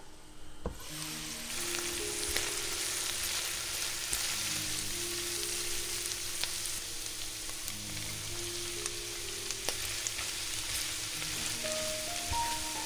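Steady crackling hiss that starts suddenly about a second in, with soft music underneath.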